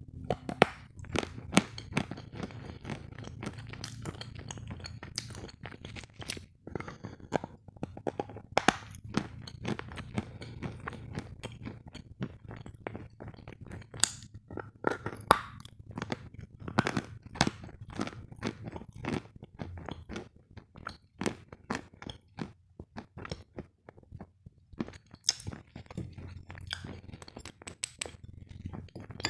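Hard lumps of sawn refined sugar being bitten and chewed close to the microphone: an irregular run of sharp cracks and crunches, with brief lulls.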